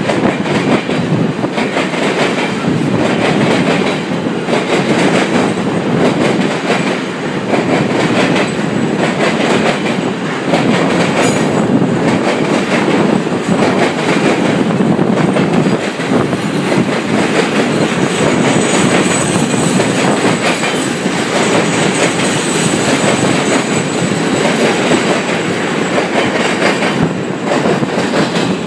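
Freight train cars rolling past at close range: a steady rumble of steel wheels with clickety-clack over the rail joints. A thin high-pitched wheel squeal joins in past the middle.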